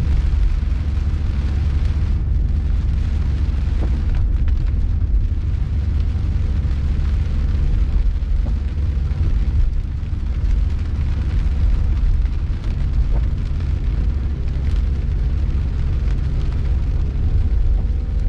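Heavy rain drumming on a car's roof and windscreen, heard from inside the cabin, over the deep, steady rumble of the car driving on a wet road.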